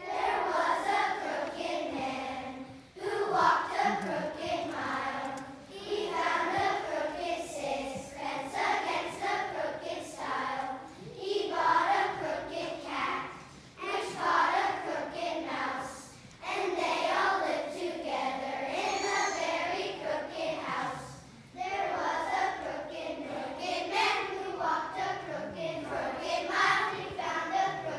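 Children's choir singing, in sung phrases separated by brief pauses.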